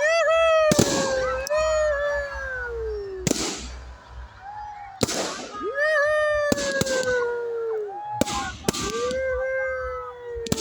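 A dog howling in three long drawn-out howls, each rising quickly and then slowly falling in pitch, while fireworks go off with several sharp bangs over the howls.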